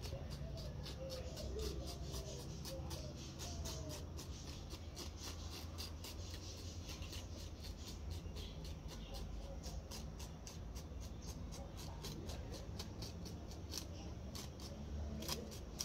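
A kitchen sieve being rasped and lightly struck with a small plastic bag, a steady run of light scratching strokes, several a second, sifting powdered cinnamon through the mesh. A low steady hum lies underneath.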